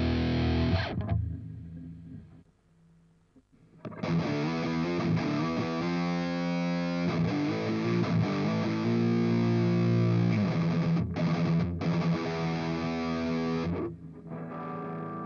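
Electric guitar played through an LY-ROCK BE-OD Deluxe overdrive pedal: distorted chords and riffs. A chord rings out and dies away about a second in, followed by a brief pause. Playing resumes about four seconds in with held chords, and turns softer near the end.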